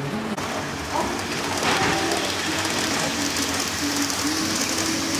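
HO-scale model train, a Roco ÖBB Railjet, running on the layout's track: a steady hiss of the wheels on the rails that grows stronger in the second half as it comes closer.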